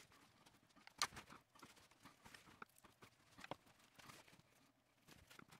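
Near silence broken by faint, scattered taps and clicks of hands working at a peel-and-stick metal tile backsplash, the sharpest click about a second in.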